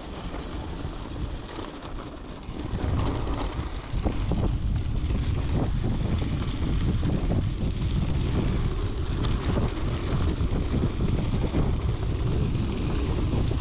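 Wind buffeting the microphone over the rolling and rattling of a mountain bike on a rough off-road trail, getting clearly louder about three to four seconds in.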